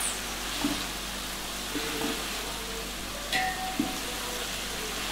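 Mixed vegetables and whole spices sizzling as they sauté in hot oil in a large aluminium pot. A steel spoon stirs them and scrapes or knocks against the pot a few times.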